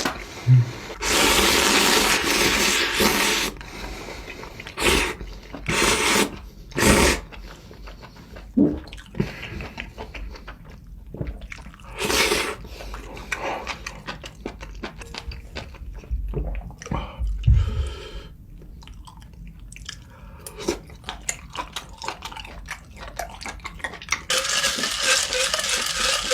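Close-miked eating sounds: several loud slurps of spicy ramen broth and noodles, with chewing and short clicks between them. Near the end a steady liquid sound begins as milk is taken to cool down.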